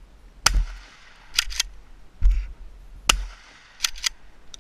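Shotgun fired several times, the action cycled between shots with quick paired clacks and spent shells ejected.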